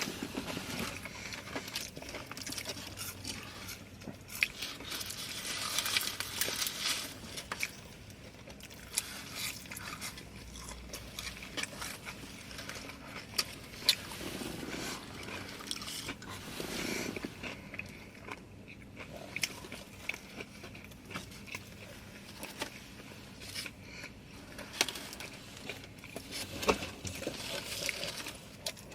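Close-up eating sounds: chewing and biting on fast food, with scattered small clicks, crackles and scrapes of food being handled.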